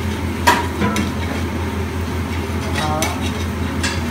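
Metal spatula scraping and tapping across a flat griddle as egg sizzles on it, with a sharp clack about half a second in. A steady low hum runs underneath.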